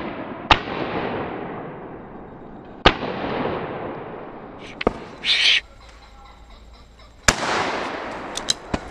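12-bore shotgun shots in steep woodland, each followed by a long echoing tail: three shots, about half a second, three seconds and seven seconds in. There are smaller sharp clicks in between, around five seconds in and again near the end.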